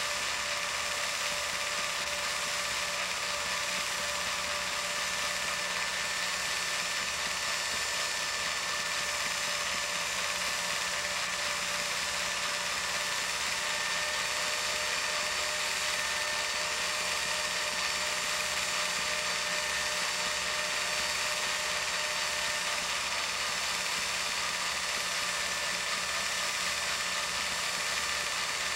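Film projector running steadily: the even whir and fast, regular clatter of its film-advance mechanism.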